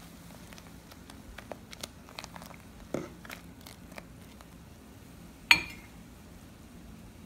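A metal ladle stirring boiling broth in a metal pot, with light clinks and scrapes against the pot, then one sharp, loud clank of the ladle striking the pot with a short ring.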